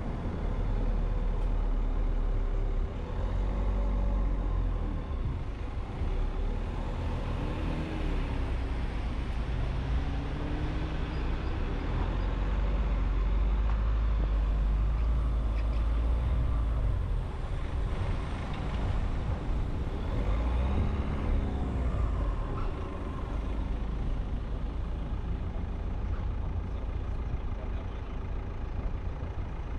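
Road and traffic noise from a car driving through city streets: a steady low rumble, with engine pitches rising and falling a few times as vehicles accelerate and slow.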